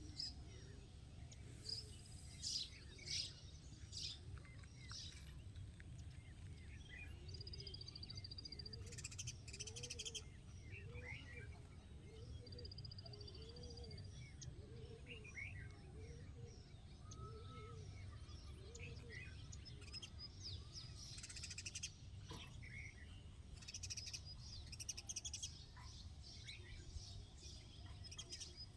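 Faint morning chorus of several birds chirping and twittering, with short high calls and trills throughout. A lower call repeats about once a second for several seconds in the middle, over a steady low rumble.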